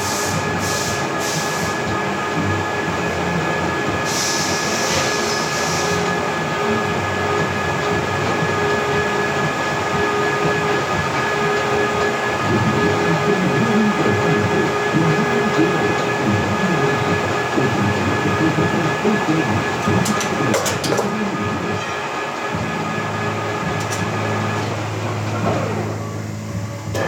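Metalworking machine running steadily: a whine of several steady tones over a rattling, clattering noise, with a few sharp clicks about two-thirds of the way in; the whine winds down and stops near the end.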